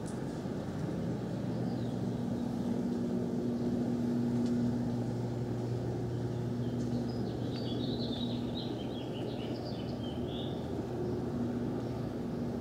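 Outdoor street ambience: a steady low mechanical hum, a little louder in the first half. Birds chirp for a few seconds around the middle.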